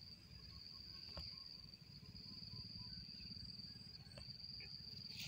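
Faint, steady high-pitched insect call, typical of a cricket, held unbroken throughout over a low rumble, with a couple of faint clicks.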